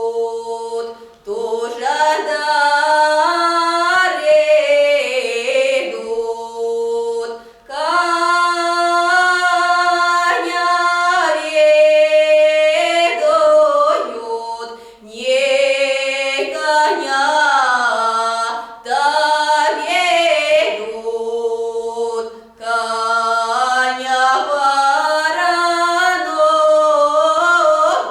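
Unaccompanied folk singing of a lyrical Nekrasov Cossack ballad, in long drawn-out phrases with short breaks for breath between them.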